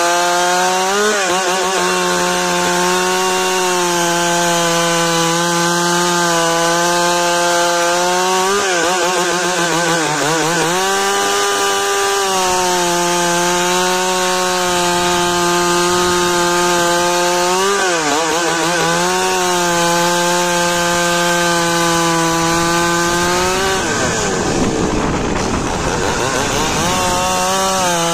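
Large chainsaw at full throttle ripping lengthwise through a cedar log. The engine holds a steady note and drops in pitch several times as the chain bogs under the cut, most deeply about 24 seconds in, then picks back up.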